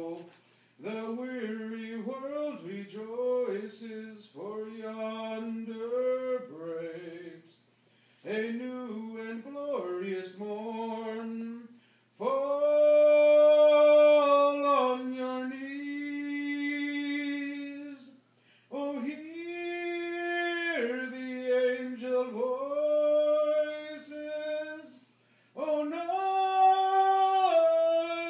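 A man singing solo and unaccompanied, in phrases a few seconds long with short pauses for breath between them, the loudest held notes about halfway through.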